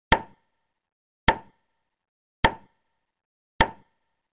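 A short, sharp pop sound effect repeated four times at an even pace, a little more than once a second, with silence between. Each pop marks another parcel appearing in a stop-motion edit.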